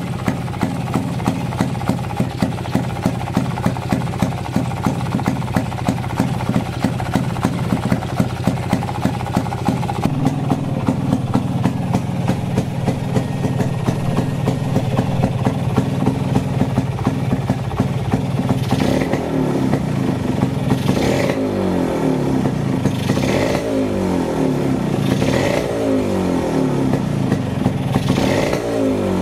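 Kawasaki HD3's single-cylinder two-stroke engine running, idling with a regular pulse at first, then revved five times in quick blips near the end, each rising and falling back.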